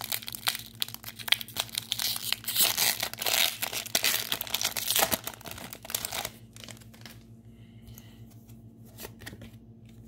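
Foil wrapper of a Pokémon Fusion Strike booster pack being torn open and crinkled: a dense crackle of tearing and rustling that stops about six seconds in, followed by faint handling of the trading cards.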